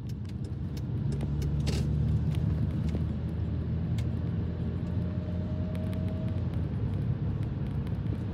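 Mercedes SLK280 driving: steady engine and road rumble with a few light clicks, and a faint thin whine for a couple of seconds around the middle.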